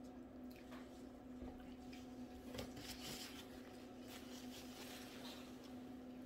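Faint eating sounds: soft chewing and wet mouth noises with scattered small clicks, over a steady low hum.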